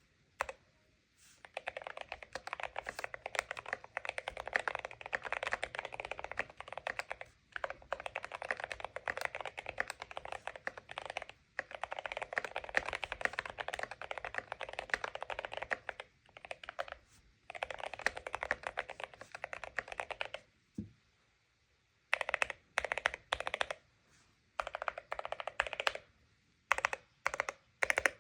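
Mechanical keyboard with Akko Rosewood linear switches being typed on in fast, continuous runs of several seconds each, separated by brief pauses. In the last third the keys are pressed in slower, separate strokes and short groups. The keystrokes sound thocky.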